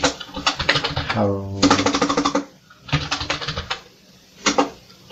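Computer keyboard keys clicking in several quick runs as a name is typed, with one word spoken about a second in.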